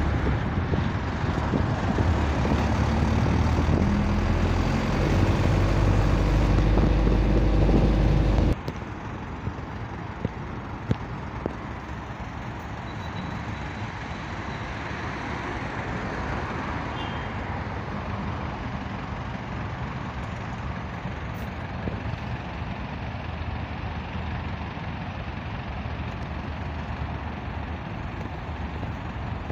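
Steady road and engine noise heard from inside a moving car, with a strong low hum for the first eight seconds or so, then dropping suddenly to a quieter, even tyre-and-traffic noise.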